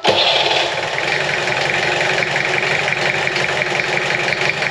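Peugeot P4's four-cylinder diesel engine comes in suddenly and runs on at an awful, lumpy tick-over. The owner later puts the rough running down to a failed injector, probably, with unburnt fuel coming out of the exhaust.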